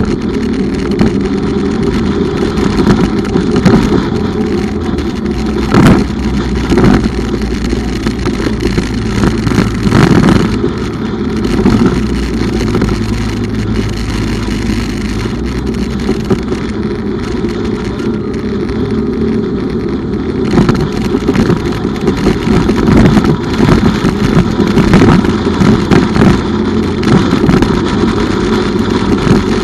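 Bumoto Regnum motorcycle being ridden, its engine running with a steady low note under loud road noise that swells and dips.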